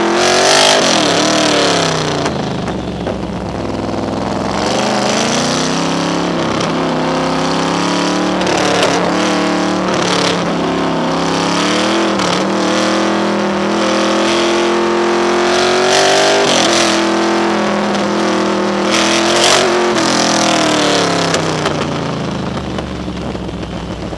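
Cobra sports car's engine under hard acceleration, its pitch rising and then dropping several times as it revs, shifts and slows for bends. Heard from a camera mounted low on the car's side.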